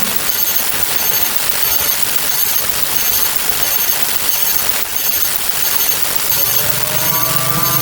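A loud, steady static-like rushing noise with no clear pitch, between a winding-down mechanical sound before it and a rising one near the end.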